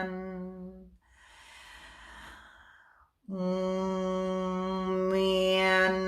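A woman's voice toning one long, steady low note that fades out, then an audible breath in, then the same note taken up again and held, brightening near the end as the vowel opens.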